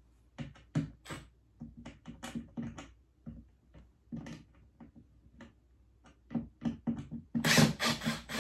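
Irregular clicks, knocks and scraping of a screwdriver and hands working the screws and plastic electrical panel of a ceiling-cassette air conditioner. A louder run of scraping and rattling comes about seven and a half seconds in.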